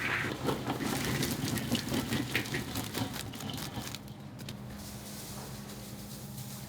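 Scattered light clicks and clatter of kitchen work for about four seconds over a steady low machine hum. The clatter then stops and only the hum continues, quieter.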